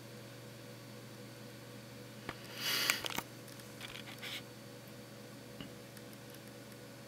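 Camera handling noise: a brief rustling scrape with clicks a little over two seconds in, then a few softer clicks, over a steady low electrical hum.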